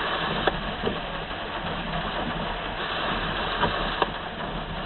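Steady hiss and hum from a radio scanner between dispatch transmissions, with a few faint clicks.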